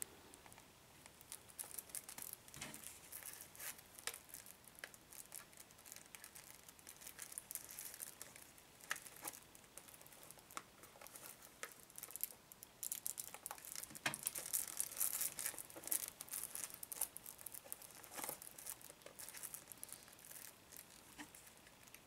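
Plastic shrink-wrap being picked at and peeled off a CD jewel case: faint, on-and-off crinkling with small clicks, busiest for a few seconds about two-thirds of the way through.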